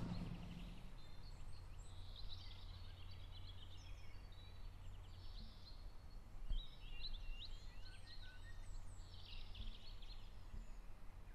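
Faint songbirds singing in short chirping phrases, in several bursts, over a low steady hum.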